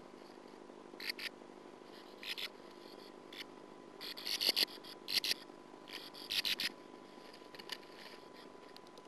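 Sand martin giving short bursts of twittering calls, about six spurts spread over several seconds, the loudest about four to five seconds in. A steady faint electrical hum runs underneath.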